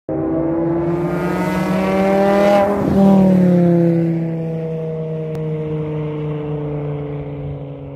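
A car passes at speed: its engine note climbs as it approaches, drops in pitch as it goes by about three seconds in, then falls and fades away.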